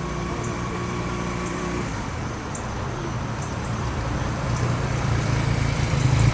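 Honda Rebel 250 single-cylinder motorcycle engine running with road and wind noise, growing louder toward the end.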